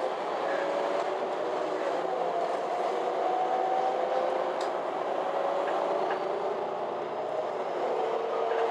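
MAN Lion's City G articulated city bus heard from inside while riding: a steady running drone with a couple of whining tones that drift slowly up and down as the engine speed changes.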